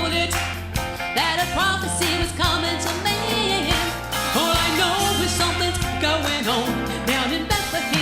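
Singers performing a Christmas song with band accompaniment: voices sliding between held notes over a bass line and drums.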